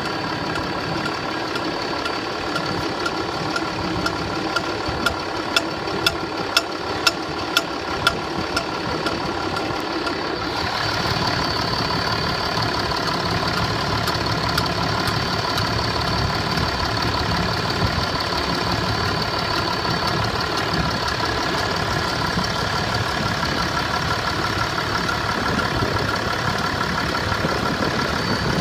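Engine idling steadily, with a run of sharp knocks about twice a second some four to eight seconds in: the extraneous engine knock the owner is documenting. A little past a third of the way through, the engine note shifts and runs a little louder and brighter.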